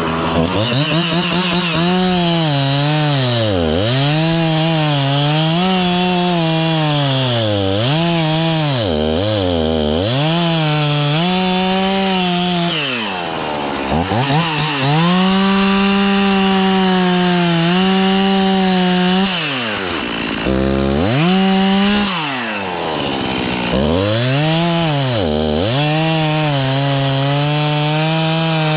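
Two-stroke chainsaw at high revs, the throttle repeatedly let off so the engine drops toward idle and is then squeezed back up, with longer stretches held at full speed.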